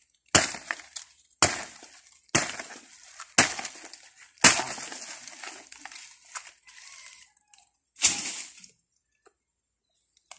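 Bolo (machete) chopping into the green stalk of a saba banana bunch: sharp strikes about once a second, five in a row, then one more after a pause of a few seconds.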